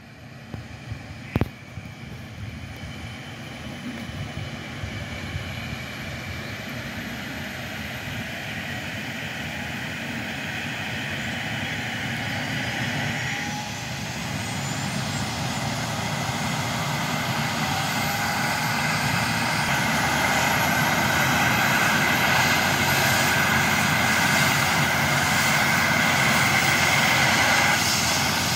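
Airbus H135 air ambulance helicopter on the ground, its turbines and rotor spooling up for takeoff: steady turbine whine and rotor noise getting louder, with a high whine slowly rising in pitch. A single sharp click about a second and a half in.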